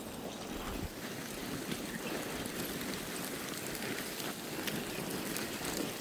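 Loose dirt and small gravel hissing and rattling steadily under a person sliding down a steep slope, with many small stones ticking.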